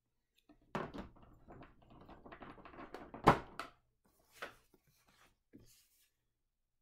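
Handling noise of a plastic board-game miniature and a large cardboard card on a table: a run of small clicks and rustles with one sharp knock about three seconds in, then a few faint taps.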